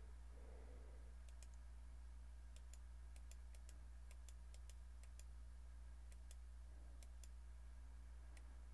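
About twenty faint computer mouse clicks, some in quick pairs, over a low steady electrical hum.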